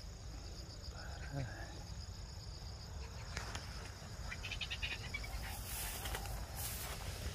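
Insects trilling steadily in the grass, a high, evenly pulsing buzz that stops near the end. A few soft clicks and rustles come in during the second half.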